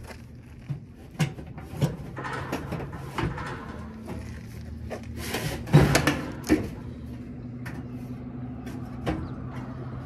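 Sheet-metal blower housing with its ECM motor mounted being handled and fitted into a rooftop package unit: irregular knocks and clanks of metal on metal, loudest around the middle, over a steady low hum.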